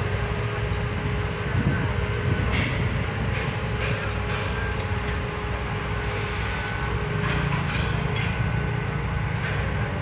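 Heavy diesel construction machinery running steadily: the low engine rumble of the cranes holding a concrete girder, with a steady whine in the first couple of seconds and a few light knocks.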